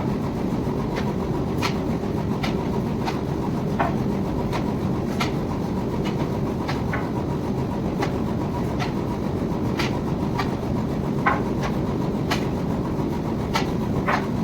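Wire-drawing machinery running with a steady mechanical rumble, broken by irregular sharp clicks and ticks, roughly one every second.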